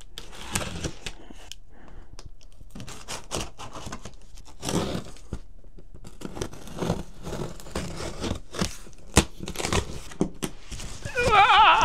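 Cardboard shipping box being opened: packing tape cut and torn away and flaps scraped and pulled apart, in irregular tearing and scraping strokes. Near the end, a short, loud, wavering whine.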